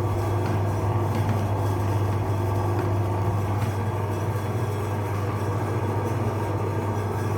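Electric meat grinder running with a steady low motor hum while grinding jelly.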